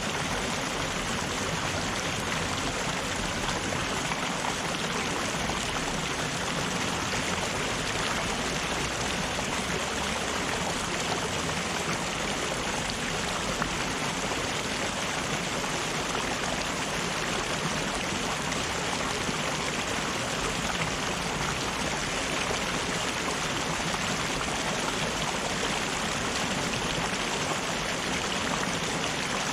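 River water rushing steadily over rocks, a continuous even splashing flow.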